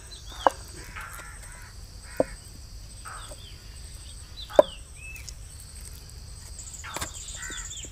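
Wooden spatula knocking sharply against a terracotta bowl three times while scraping boiled chicken off the bone, with short falling bird chirps in the background.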